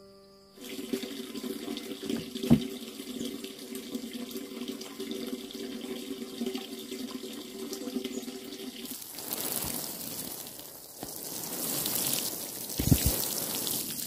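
A watering can sprinkling water through its rose onto bare, freshly dug soil, an even hissing patter that starts about two-thirds of the way in. Before it there is a steady low hum with a single knock.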